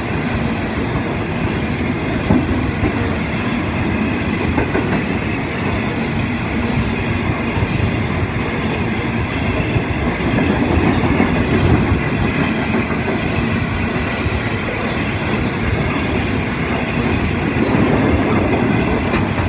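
Freight train wagons rolling past, a steady rumble and clatter of steel wheels on the rails.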